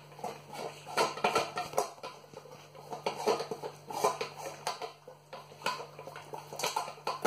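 A puppy eating from a stainless steel bowl, with irregular clinks and rattles as it knocks the metal bowl, some in quick clusters.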